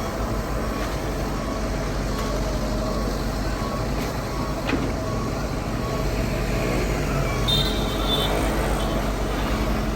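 Heavy construction equipment's diesel engine running steadily with a low, pulsing hum. A brief high-pitched tone is heard about three-quarters of the way through.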